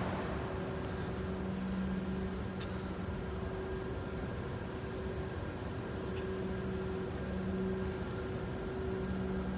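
Steady mechanical hum, a low drone with a higher tone above it that swells and fades slowly, with a couple of faint ticks.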